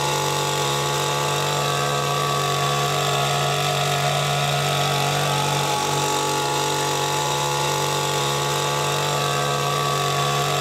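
Oleo-Mac petrol hedge trimmer's small two-stroke engine running at a steady, unchanging pitch while its reciprocating blades trim a hedge.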